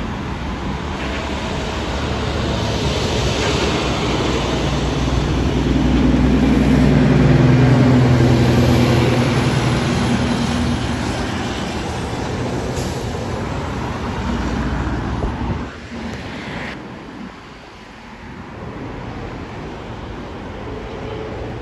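An aircraft's engines passing close by: a rumble with a low engine tone that swells to its loudest about seven seconds in, the tone sliding down as it goes by, then fading away, dropping off sharply about sixteen seconds in.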